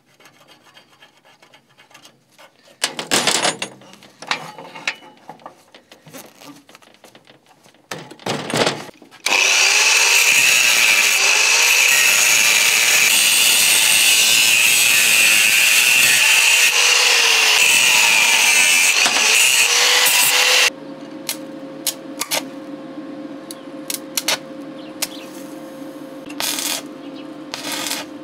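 Angle grinder with a cut-off disc cutting through square steel tube clamped in a vise: a steady, loud high-pitched grinding whine for about eleven seconds that stops abruptly. Before it come a few short, loud bursts, and after it a quieter steady hum with scattered clicks and crackles.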